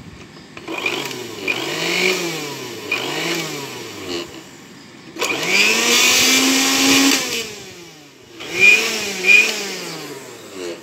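Electric blender motor test-run after its drive gear coupling has been removed, greased and refitted. It is switched on in three runs, each with a whine that spins up and winds down; the middle run is held longest at a steady high pitch.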